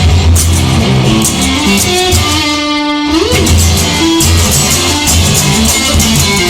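Instrumental break of a rock song: electric guitar lead over bass and a steady beat, with one note held and then bent upward about three seconds in.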